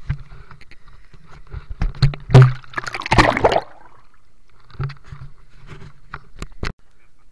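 Water splashing and gurgling as the camera dips briefly under the river surface, loudest about two to three and a half seconds in, with scattered clicks and knocks from handling a rubber-band speargun holding a speared fish.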